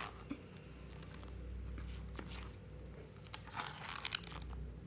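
Photobook pages being handled and turned: faint paper rustles and crinkles, clustered about two seconds in and again between three and four seconds in, over a steady low hum.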